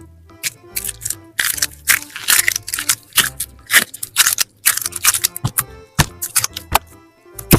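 Irregular sharp clicks and crackles of slime being squeezed and stretched by hand, over soft background music.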